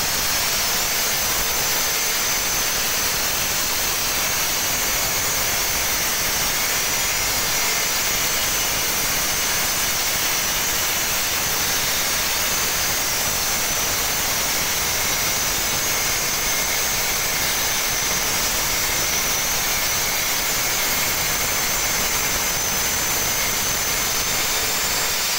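Granite-cutting machine's circular saw blade running through stone: a loud, steady grinding hiss with a faint high whine, unbroken throughout.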